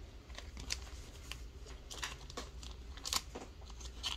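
Thin plastic card sleeve crinkling and rustling as a trading card is slid into it. A run of short scrapes and clicks, loudest about three seconds in.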